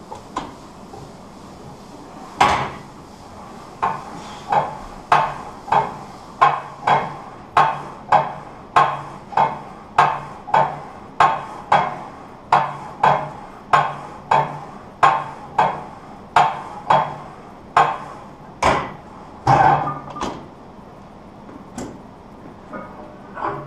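Plate-loaded leg press sled clanking with each rep in a steady rhythm, about three clanks every two seconds. A single clank comes first as the sled is released, and heavier clanks near the end as it is racked.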